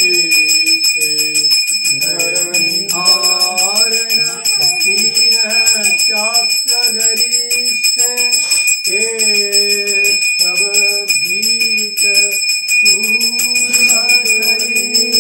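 Brass puja handbell rung rapidly and without pause during an aarti, giving a steady high ringing, over a voice singing.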